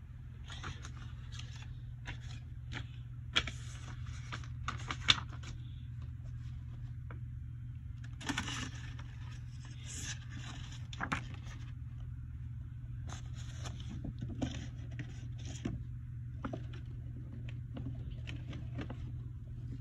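Scattered rustling, scraping and clicking of toys and packaging being shuffled about in plastic storage bins, over a steady low hum.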